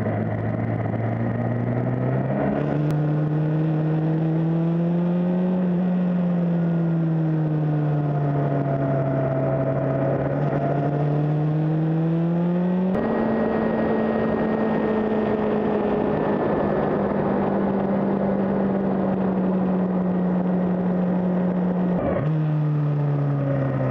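Suzuki GSX-R600's inline-four engine heard onboard, its pitch rising and falling with the throttle through the bends, over steady wind and road noise. The engine note jumps abruptly about two and a half seconds in, again about halfway through, and once more near the end.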